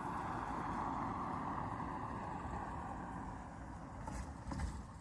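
A motor vehicle going past, its noise loudest at the start and fading away over a few seconds. A few short clicks follow near the end.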